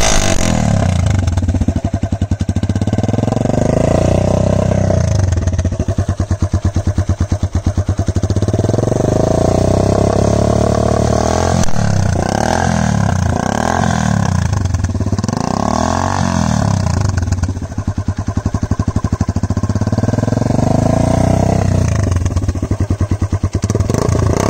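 Suzuki GS150's single-cylinder four-stroke engine running through an aftermarket chopper-style silencer that has been cut down and refitted, revved several times between idles, with a run of short, quick throttle blips around the middle.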